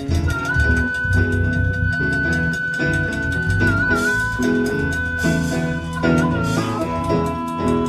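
Live band playing a slow blues in E: drums and bass keep time under a lead instrument holding one long sustained note, with short bends about four and six seconds in, before it settles onto a slightly lower note near the end.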